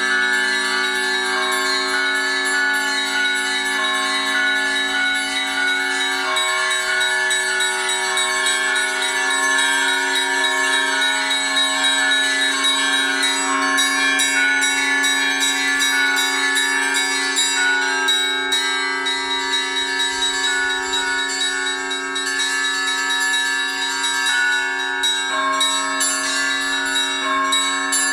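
Russian Orthodox church bells ringing together in a continuous peal. Smaller, higher bells are struck in a quick repeating pattern over the sustained ring of the larger bells.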